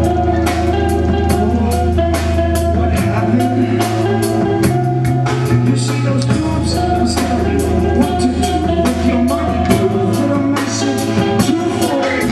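Live rock band playing: a steady drum-kit beat with guitar and held bass notes that change every few seconds, and a singer's vocals.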